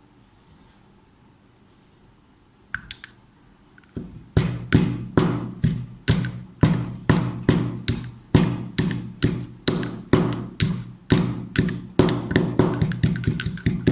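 Pestle pounding ginger in a mortar: sharp ringing strikes about two a second, starting about four seconds in and quickening near the end.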